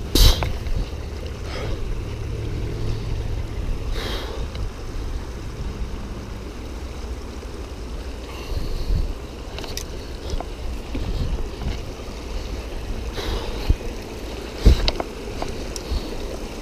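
Footsteps and scuffs of someone clambering over riverbank rocks, with a few sharp knocks, the loudest about fifteen seconds in. A steady low rumble of wind on the microphone and the rush of a shallow stream over rocks run underneath.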